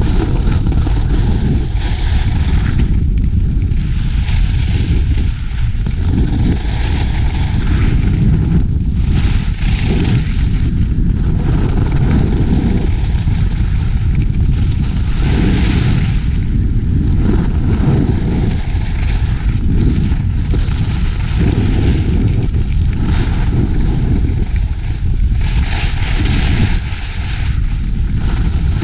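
Wind buffeting a GoPro's microphone during a ski run, a constant low rumble, with the hiss of skis scraping on snow swelling and fading every few seconds as the turns come.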